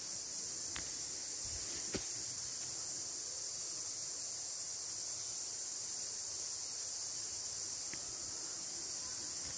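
Steady high-pitched drone of insects in a forest, unchanging throughout, with a couple of soft knocks about one and two seconds in.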